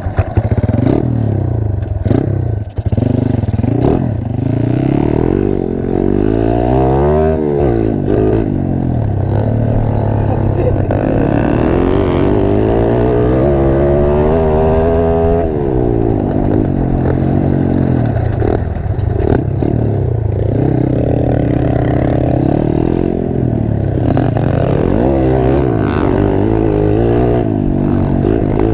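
Dirt bike engine being ridden hard, heard from on board, its revs climbing and dropping again and again as the rider accelerates, shifts and backs off.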